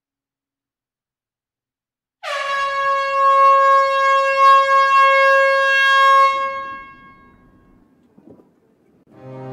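A train's air horn sounding one long blast at a single steady pitch. It starts abruptly about two seconds in and fades out after about four seconds.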